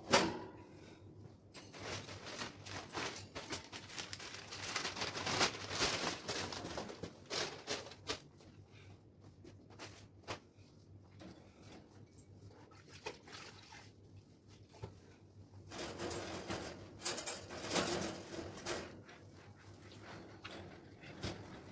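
Rustling, scraping and light clattering of a bird cage being cleaned by hand, in two busy stretches with a quieter gap between them.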